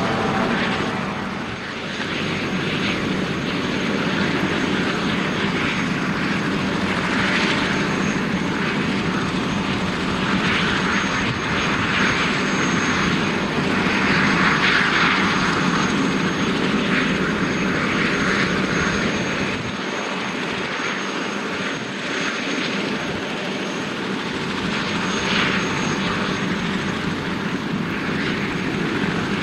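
Helicopter's turbine engine and main rotor running on the ground during startup: a rushing rotor and engine noise with a steady high turbine whine over it, swelling and easing slightly.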